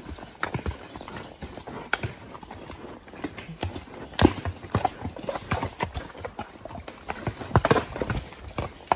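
Horse hoofbeats on a dirt woodland trail: an uneven run of short knocks, with a few louder hoof strikes about four seconds in and again near the end.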